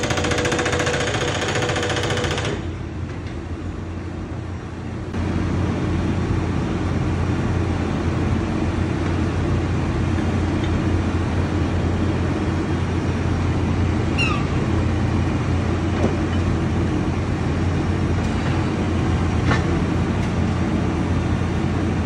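A hydraulic breaker on a Cat backhoe loader hammering for the first couple of seconds, then stopping. After a short lull the backhoe's diesel engine runs steadily with a low hum.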